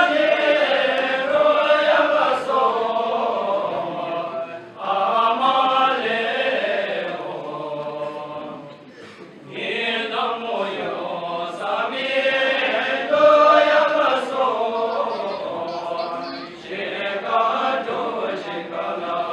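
A group of men singing a Bhutanese dance song together, unaccompanied and chant-like, in long phrases with brief pauses between them.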